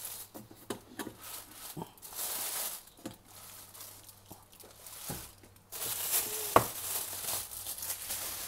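Plastic air-column packaging crinkling and rustling in irregular bursts as it is pulled off a hot air soldering station, with one sharp knock about two-thirds of the way through.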